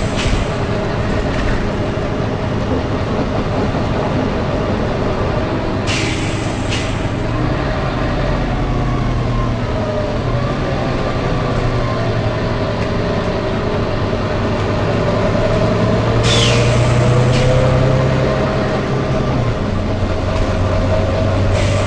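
Volvo B9TL double-decker bus running, its engine and driveline drone slowly falling and rising in pitch and getting louder for a while past the middle. Short hisses of compressed air come in pairs, 'tsh tsh', about six seconds in, again around sixteen seconds, and once more near the end.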